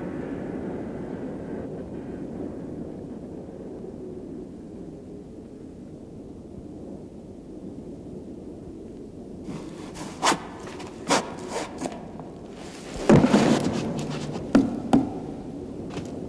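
A low rumbling drone that slowly fades, then sharp knocks and thuds from about ten seconds in: a few single knocks, then a louder cluster of knocks near the end.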